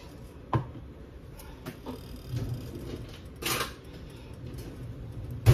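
Kitchen handling noises while the crab meat is readied for the skillet: a sharp click about half a second in, a brief rustle a little past halfway, and a sharp knock near the end.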